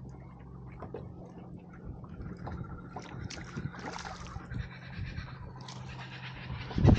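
Water lapping and sloshing against the hull of a plastic fishing kayak, with scattered small clicks and knocks and a steady low hum underneath.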